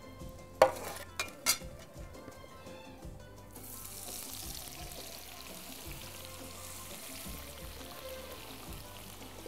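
A metal slotted spoon clinks against a plate three times, the first loudest. About three and a half seconds in, a fresh batch of starch-dusted sliced onions goes into hot oil in a frying pan and sizzles steadily.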